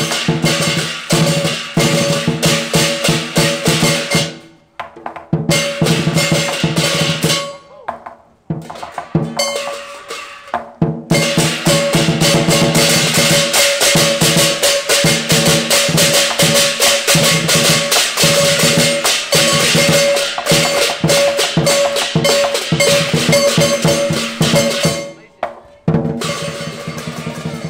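Lion dance drum beaten with sticks together with clashing hand cymbals, a dense steady run of strokes with ringing metal. The playing breaks off briefly a few times, around five seconds in, around eight seconds in and just before the end, and starts again.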